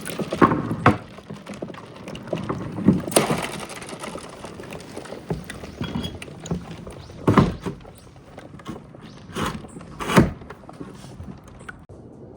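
Marbles rolling down a wooden marble run with right-angle turns: an uneven rolling rumble broken by sharp clicks and knocks, the loudest about seven and ten seconds in.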